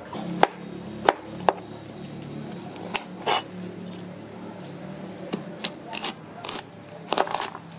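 Kitchen knife cutting through a whole garlic bulb on a wooden chopping board: sharp knocks of the blade against the board, scattered at first and several in quick succession near the end, over a low steady hum.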